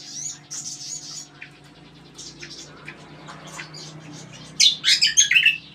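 Kecial, a small white-eye songbird, singing its varied 'kombo' song: scattered high chirps, then a loud, rapid run of notes near the end. A steady low hum runs underneath.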